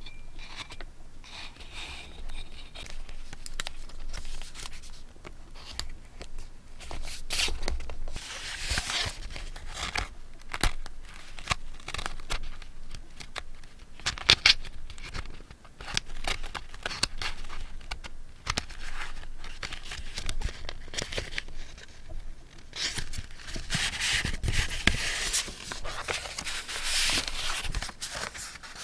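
Paper and stationery being handled at close range for scrapbooking: rustling and crinkling paper, snips and tearing, with many small clicks and taps.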